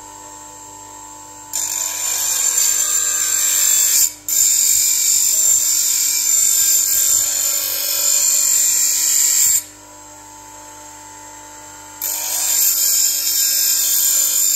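Bench grinder running with a steady hum while a plane blade is pressed to the wheel in three bouts of loud, hissing grinding: from about a second and a half in, again just after four seconds, and from about twelve seconds on. The blade's edge is being ground back to remove a chip.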